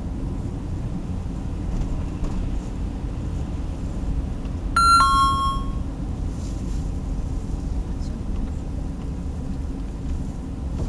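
Hummer H2 driving slowly in town traffic: a steady low engine and road rumble heard from inside the cabin. About five seconds in, a two-note descending electronic chime (ding-dong) sounds once.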